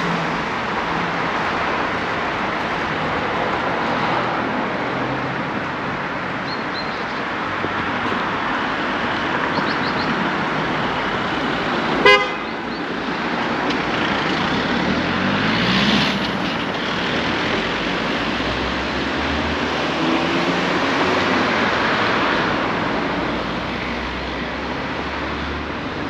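Steady road traffic with cars passing, and one short car horn toot about twelve seconds in, the loudest sound.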